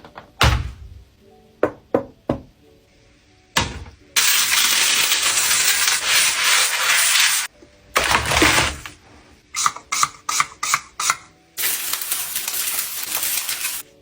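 Kitchen cooking sounds: several sharp knocks, then a loud steady hiss for about three seconds, a heavy knock, a quick run of clicks and another steady hiss near the end, over faint background music.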